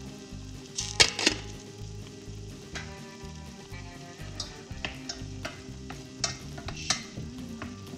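Wooden spoon stirring food in a dish, with sharp knocks of the spoon against the dish: two loud ones about a second in, then lighter taps every second or so.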